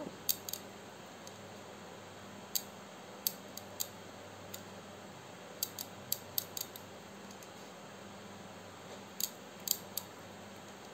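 Light, irregular clicks and ticks of a metal crochet hook as hands work single-crochet stitches into yarn, some coming in quick clusters of two or three, over a faint steady hum.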